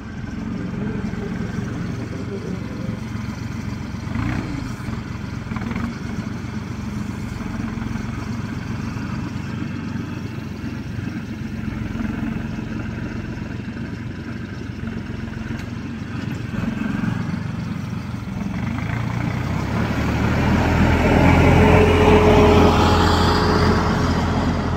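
Tractor engine running steadily while hauling round hay bales, growing louder with a rising pitch about three-quarters of the way through as it revs or draws closer.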